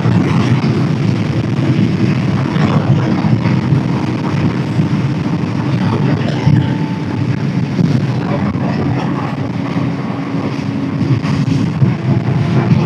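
Suzuki GSX-R600's inline-four engine running steadily at road speed, with wind rushing over the helmet microphone.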